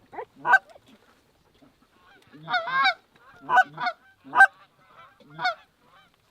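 Geese honking: a series of short, separate honks, several in quick succession near the middle.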